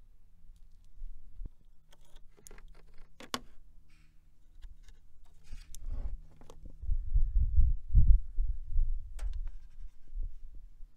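A faint steady hum from a small 12 V electric oil-extractor pump, with clicks and clatter of hoses and clamps being handled; the hum stops about six seconds in. It is followed by low, uneven thumps and rumbling close to the microphone, the loudest part, as the suction hose is drawn out of the dipstick tube.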